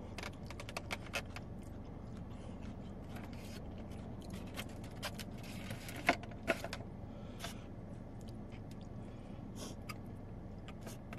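Fork and knife clicking and scraping against styrofoam takeout containers while cutting up a wet burrito, with two sharper knocks about six seconds in as a container is handled.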